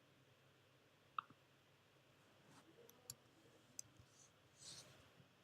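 Near silence with a few faint computer mouse clicks, the clearest about a second in.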